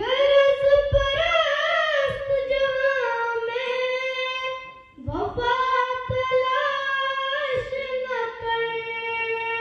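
A girl singing an Urdu naat solo and unaccompanied, in two long phrases with drawn-out, ornamented held notes and a short breath about five seconds in.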